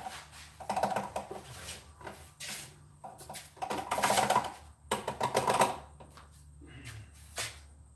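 Hand ratchet clicking in repeated short bursts as it is swung back and forth on a fastener in a Jeep engine bay, with short pauses between strokes. A steady low hum runs underneath.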